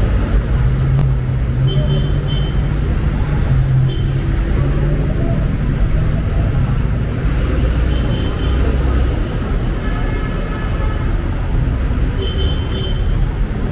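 City street traffic: a nearby motor vehicle's engine running with a low steady hum that fades about nine seconds in, over a continuous low traffic rumble.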